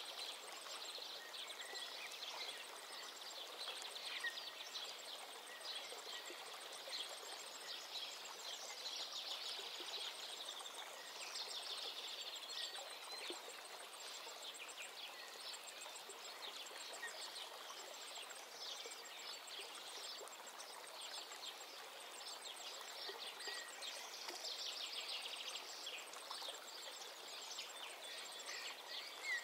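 Faint birdsong, many short chirps and trills, over a steady hiss.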